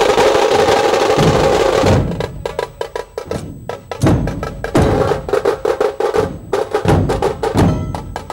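Dhol-tasha drum ensemble playing: the tashas hold a fast, continuous roll for about two seconds, then break into a quick rhythm of sharp stick strokes, with deep dhol beats landing every second or so.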